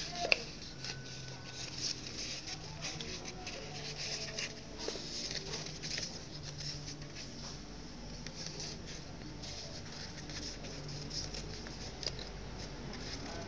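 A sheet of paper rustling and crinkling as it is folded and creased by hand, with many small crackles.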